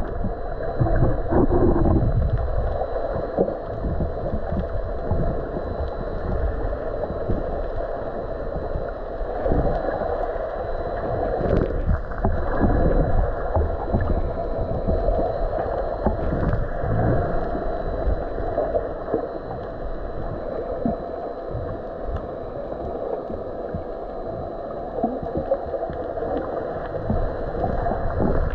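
Muffled underwater ambience heard through a GoPro's waterproof housing: a steady, dull rush of water with irregular low thumps and sloshes, and a faint steady high tone over it.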